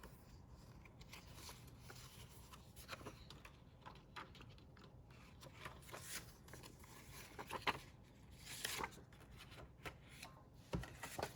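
Faint rustling of paper and light taps and clicks as planner pages and inserts are handled and turned, with a few sharper clicks in the second half.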